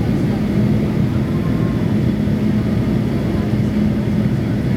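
Steady cabin drone inside a Boeing 737-800 on approach, from its CFM56 engines and the airflow over the fuselage, with a constant low hum running under the noise.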